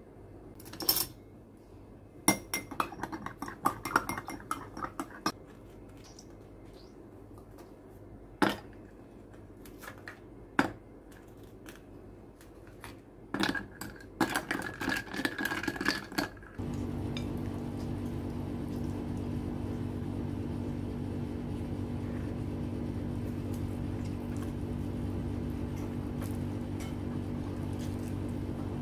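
Ice cubes and a spoon clinking and tapping against a stemmed glass mug of tea, in scattered bunches that grow densest as the ice goes in. About two thirds of the way through the clinking stops abruptly and a steady low hum takes over.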